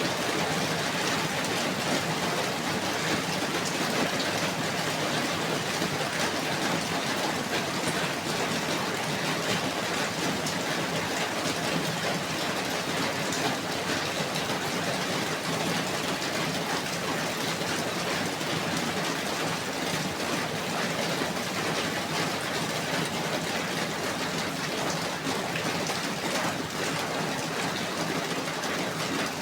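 Steady rain falling, a dense, even hiss of many drops.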